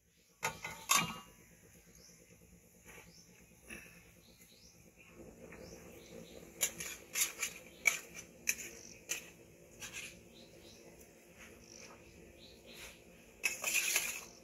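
Kitchen utensils and dishes being handled: irregular sharp clicks and knocks, with a denser clatter near the end, over faint bird chirps.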